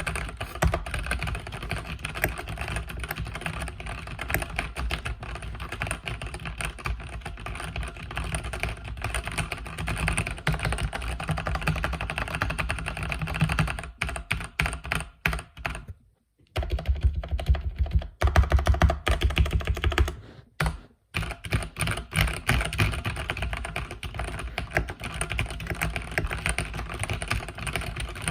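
Mechanical keyboard with red linear switches being typed on continuously: a fast, dense patter of keystrokes, broken by two short pauses past the middle.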